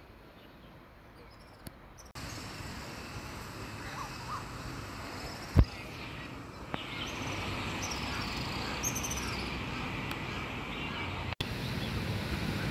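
Small birds chirping in short repeated high calls over steady outdoor background noise, which gets louder about two seconds in. A single sharp click a little past the middle is the loudest sound.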